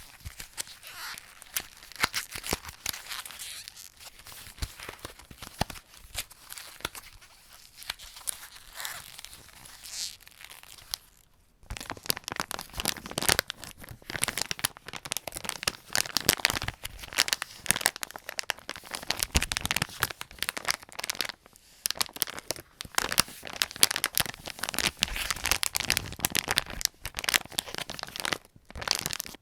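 Paper packaging cardboard being folded, crinkling and crackling softly. After a short pause about a third of the way in, louder, denser crinkling of a small resealable sweet bag as sweets are taken out of it.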